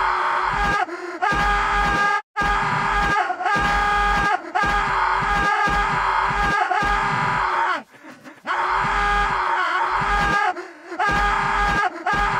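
A cartoon man's loud, anguished screaming and groaning in pain, the same wail repeated over and over in long stretches broken by short gaps, with a brief cut to silence about two seconds in and a lull around eight seconds.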